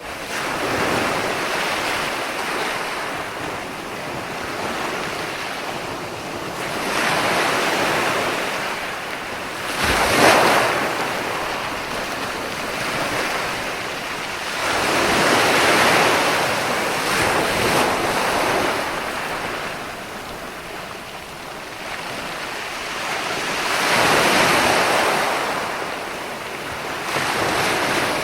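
Ocean surf: waves breaking and washing in, the rushing noise swelling every several seconds and easing between them, with one sharper, louder crash about ten seconds in.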